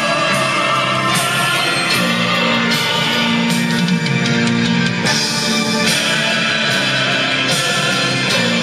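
Rock music with guitar and singing, played loudly through a pair of Sansui SP-1000 speakers, with a steady drum beat.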